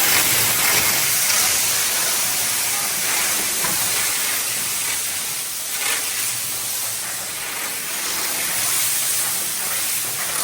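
Firework fountain spraying sparks with a steady hiss, a few faint pops or cracks scattered through it.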